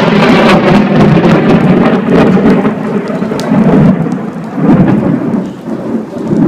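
Thunder from a lightning strike very close by: a very loud, crackling roll that eases off about four seconds in and then swells again, with rain falling.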